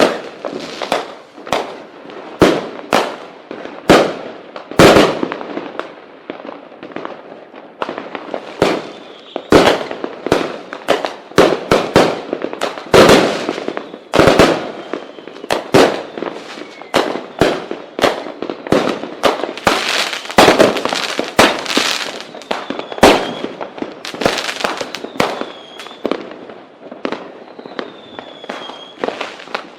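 Fireworks going off: a dense, irregular series of loud bangs and crackling pops, several close together at times. Short whistling tones come in over the second half.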